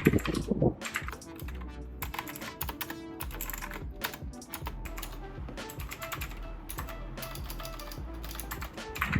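Keystrokes on an HP GK200 mechanical gaming keyboard: a continuous run of clicking typing, somewhat louder in the first second, over background music.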